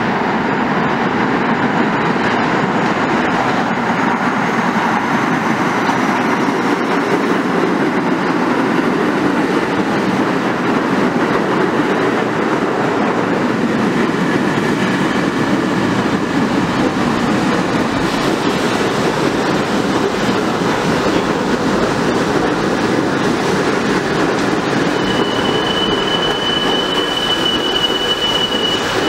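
An R68A subway train pulling into the underground station and slowing, its wheels rumbling steadily on the track. A high, steady squeal sets in near the end as it slows.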